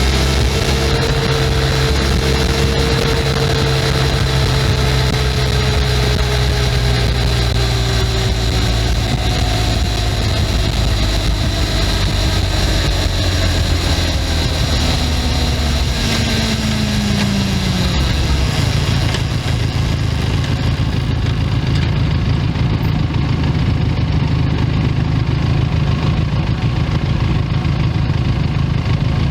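Benelli 502C's stock 500 cc parallel-twin engine and stock exhaust running, its pitch falling slowly as the bike slows over the first two-thirds, then settling into a steady low idle.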